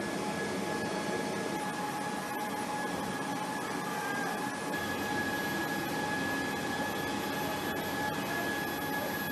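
Steady jet turbine whine over an even rushing noise from a large military transport aircraft, holding two constant high tones with no change in pitch.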